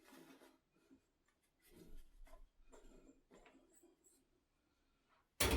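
Faint rustling, scraping and small clicks of items being handled and set down on a shelf unit, then a sudden louder clatter near the end.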